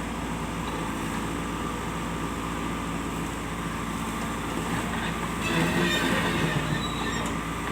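Diesel engine of earth-moving machinery running steadily. About five and a half seconds in it gets louder, with metallic rattling and clatter over the hum.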